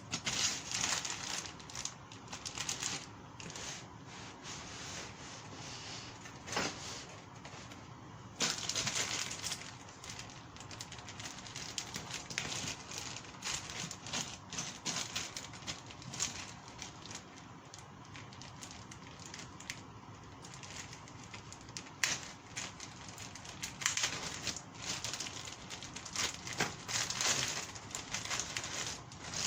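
Plastic packaging bags of kit parts crinkling and rustling as they are opened and handled, with irregular sharp clicks and taps throughout.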